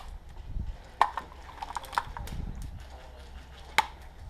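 Scattered sharp snaps of airsoft gunfire: a single loud shot about a second in, a few quieter ones around two seconds, and another loud one near the end.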